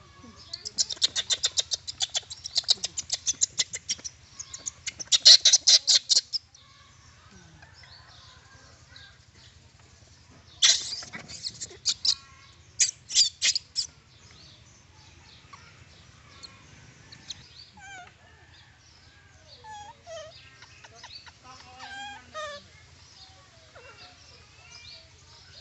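Four bursts of rapid, high chattering calls, two in the first six seconds and two more around the middle, followed by faint scattered short chirps.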